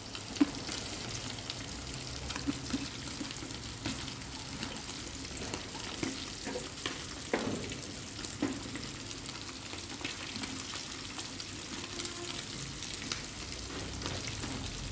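Squid and vegetable stir-fry sizzling gently in a frying pan while freshly added shredded cabbage is stirred in with chopsticks, with a few light taps and scrapes against the pan.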